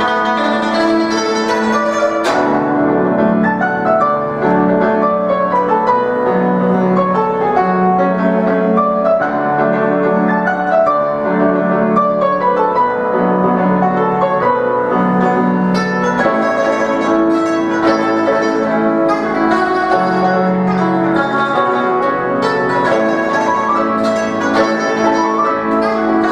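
Guzheng and piano playing a duet, the guzheng plucking quick runs of notes alongside the piano.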